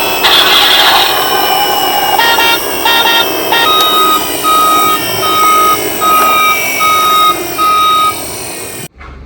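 Electronic sound effects from a battery-powered toy emergency vehicle: a short burst of noise, a quick run of short tones, then one beep tone repeated evenly about six times, over a steady background noise. The sound cuts off abruptly near the end.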